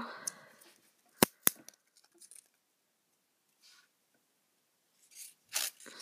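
Handling of a 12 W USB power adapter and its plastic wrap: two sharp clicks about a second in, a quarter of a second apart, then quiet, and a short rustle of plastic film near the end as the protective plastic is pulled off.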